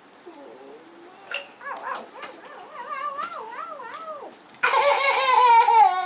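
A toddler's voice in a wavering, wobbling whine that grows louder and breaks into a loud, high wail about four and a half seconds in.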